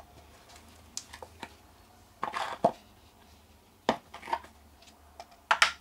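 Cast lead fishing weights knocking and clinking together as they are picked up off a tray and put into a cardboard box: a handful of separate sharp knocks, a small cluster about halfway and the loudest pair near the end.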